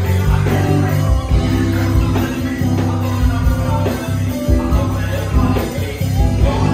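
Live rock band playing: drum kit, bass, electric guitars and keyboard, with a singer's voice over them.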